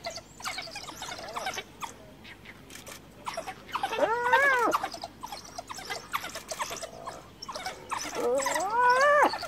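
Spotted hyena cornered by African wild dogs giving two long calls that rise and fall in pitch, about four seconds in and again near the end, calling for help, amid the wild dogs' rapid high twittering chirps.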